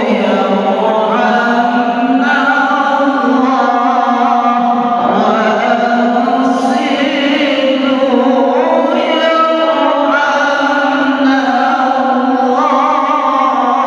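A young girl reciting the Quran in the melodic tilawah style, holding long ornamented notes with wavering pitch and pausing briefly between phrases.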